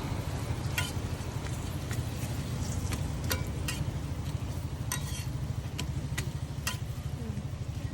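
Roti frying on a flat griddle with a faint sizzle, as a metal spatula clinks and taps sharply against the pan about once or twice a second over a steady low hum.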